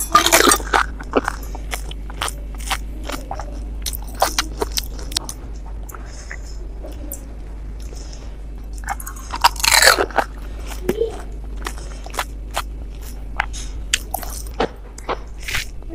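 Pani puri (golgappa) being eaten: a hollow fried puri shell, filled with spiced water, cracks loudly as it is bitten, followed by a run of crisp chewing crunches. A second loud bite into another puri comes about ten seconds in.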